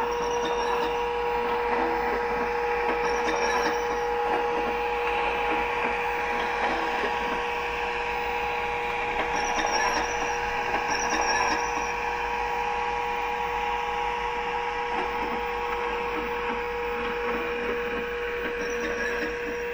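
Accurascale Class 92 model electric locomotive running along the track, a steady electric hum over a mechanical whirring, with a few brief high squeaks now and then.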